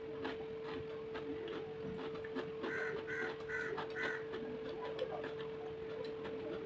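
Eating by hand: fingers mixing rice on a plate and chewing, heard as small clicks over a steady hum. About three seconds in, a bird calls four times in quick succession.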